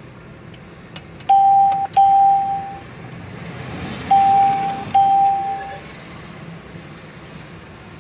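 PTT ATM keypad beeping as a PIN is keyed in: four key presses, each a click followed by a steady electronic beep of under a second, coming in two pairs.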